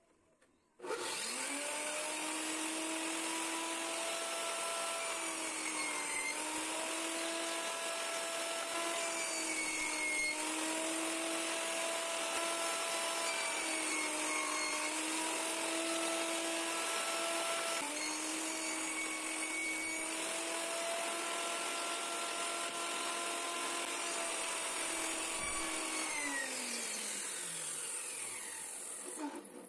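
Table saw motor starting up about a second in and running with a steady hum and whine, dipping in pitch several times as it cuts through wood. Near the end it is switched off and winds down, its pitch falling.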